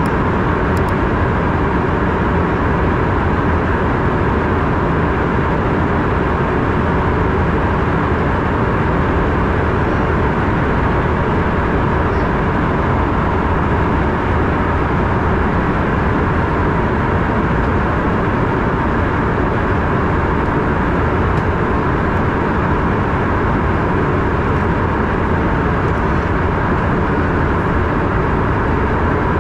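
Steady cabin noise inside an Embraer ERJ-145 in flight: an even rush of airflow and the drone of its rear-mounted Rolls-Royce AE 3007 turbofans, with a faint steady high tone.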